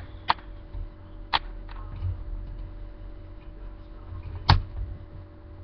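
Light plastic clicks and taps from a radio-controlled car wheel being handled and fitted onto its hub by hand: three small clicks in the first two seconds and a louder one near the end.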